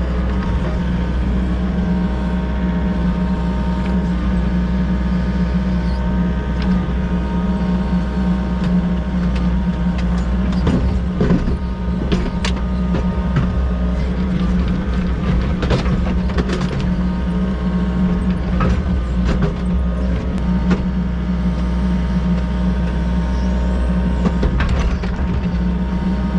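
Volvo EC60E mini excavator's diesel engine running steadily while digging, with scattered knocks and scrapes of the digging work, bunched around the middle and again near the end.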